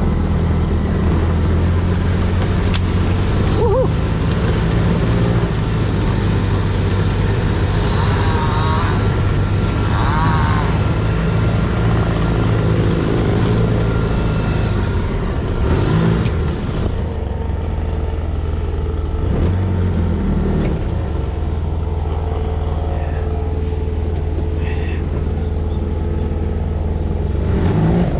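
Side-by-side UTV engine running steadily under load as it drives over brush and sticks to flatten them, with a short sharp crack about sixteen seconds in.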